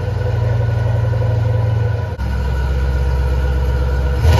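2006 Ford Mustang idling with a steady low exhaust rumble. About two seconds in the note settles lower, and the engine starts to rev right at the end.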